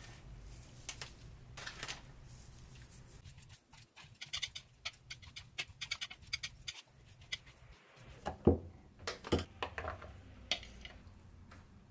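Handling sounds while preparing a side dish: a spoon tossing dressed greens in a glass bowl gives quick light clicks and taps, then a plastic food-storage container and its lid knock sharply twice, about eight and nine seconds in.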